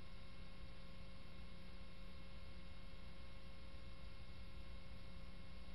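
Steady electrical hum under a faint hiss, with no other sound.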